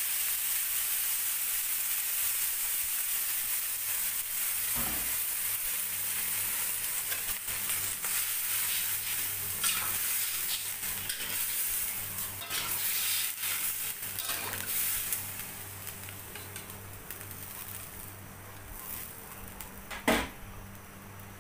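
Hot steel wok sizzling and hissing as water hits the fried meat and spice paste. A metal ladle stirs and clinks against the wok several times. The sizzle fades in the last several seconds as the liquid settles toward a simmer.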